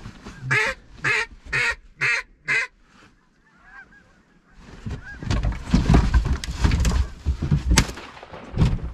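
Geese honking: four loud honks about half a second apart, a short lull, then a busy stretch of many overlapping honks and calls with one sharp crack near the end.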